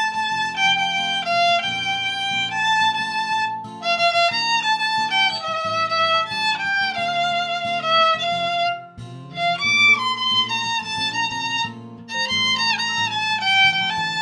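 Violin playing a lyrical melody with vibrato over a lower accompaniment, with short breaks between phrases about nine and twelve seconds in.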